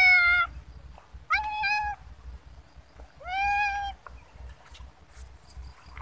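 A domestic cat meowing three times, each meow under a second with a quick upward swoop into a steady, fairly high call, the last about three and a half seconds in.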